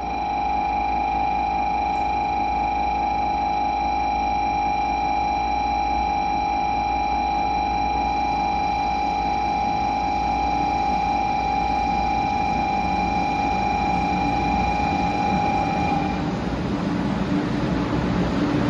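A steady high electronic tone sounds and cuts off about three-quarters of the way through. Meanwhile a 500 series Shinkansen train pulls in, and its running noise rises over the last few seconds as it comes alongside the platform.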